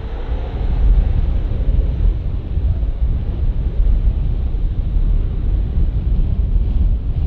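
Gulfstream IV SP's Rolls-Royce Tay turbofans giving a steady, low rumble as the jet rolls along the runway after landing, with wind buffeting the microphone.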